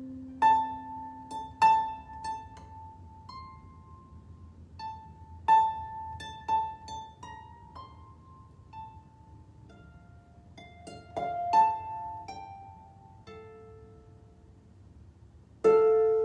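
Solo harp played slowly and meditatively: single plucked notes spaced out, each ringing and fading, with one note returning again and again, and a fuller chord of several notes near the end.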